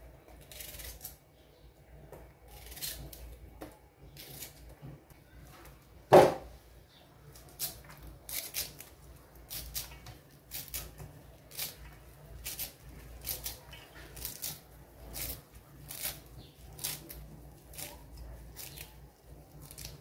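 Food preparation by hand over a steel bowl in a sink: a kitchen knife working vegetables and hands handling fresh greens. The strokes are short, crisp scrapes and rustles, about one a second in the second half, with one much louder knock about six seconds in.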